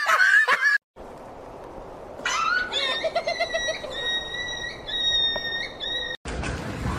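A loud burst of music for the first second, then a puppy's thin, high-pitched howling in long held notes that step between pitches, from about two seconds in until shortly before the end.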